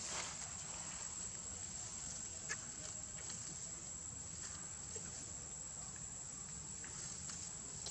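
Outdoor ambience: a steady high-pitched drone over a low rumble, with a few faint sharp clicks.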